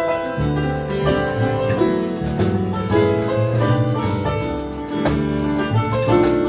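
Live band playing an instrumental passage: sustained piano chords over a bass line, with light percussion strokes at about two a second.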